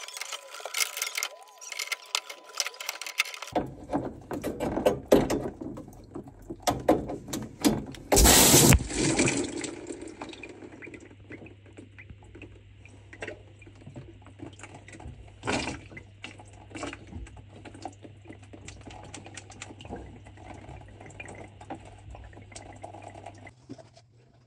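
Metal clicks of pipe grips working a filling-loop fitting under a combi boiler. Then pressurised water squirts out of the undone fitting in one loud burst of under a second and fades away: the pipework was still under pressure because it had not been relieved.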